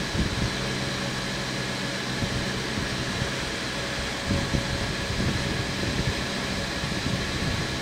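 Steady whir of a running fan with a low hum under it, and a few light clicks and taps.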